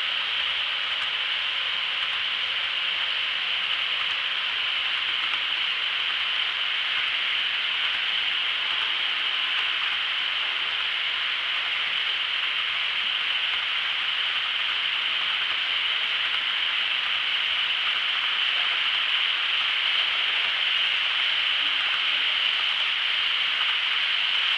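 Model freight train rolling past on the layout track: a steady hiss from its wheels running on the rails, growing slightly louder toward the end.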